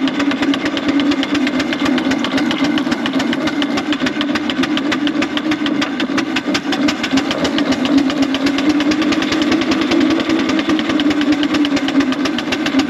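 4-inch scale Foster steam traction engine working hard under load through deep grass on about 55–60 psi of steam, its chimney exhaust chuffing in a fast, even beat over a steady drone.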